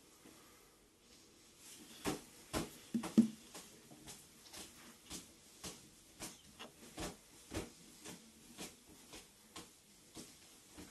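Repeated karate kicks from a raised knee. A short sharp snap comes about twice a second, and the first few are louder with a dull thump in them.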